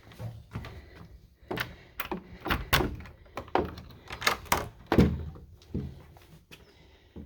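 A run of irregular knocks and thuds as a door is handled and opened, the loudest about five seconds in.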